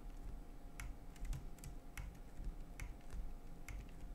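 Computer mouse clicking: about eight short, sharp clicks at an uneven pace, over a faint steady hum.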